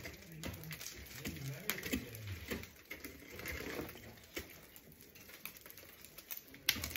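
Scattered sharp taps and clicks at irregular intervals, over a faint low murmur.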